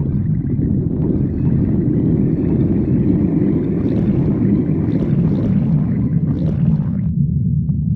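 Human stomach growling, close up: a long, rough gurgling rumble with a few small pops in the middle, which cuts off suddenly about seven seconds in, over a constant low rumble.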